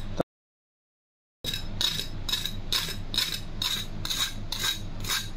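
Flat metal spatula tapping and scraping the crisp, grill-toasted top slice of a thick sandwich, about two crunchy strokes a second, showing how crispy the toast is. The sound drops out for about a second near the start.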